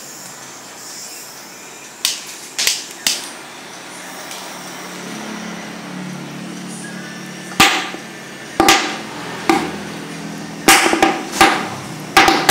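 Sharp snaps, with a steady low hum underneath, while a small HHO gas torch is being lit. A few snaps come early, then a quicker run follows from about two-thirds of the way in.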